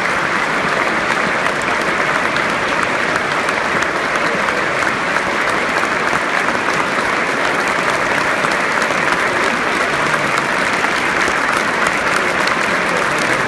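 A large football stadium crowd clapping steadily and without a break: a minute's applause in tribute.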